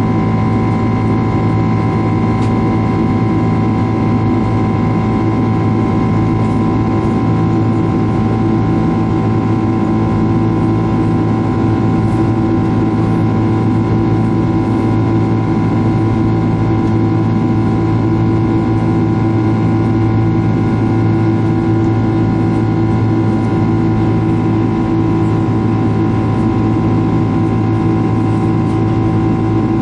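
Boeing 767 turbofan engine heard from inside the cabin at climb power: a steady drone with several constant tones over a rushing noise of engine and airflow.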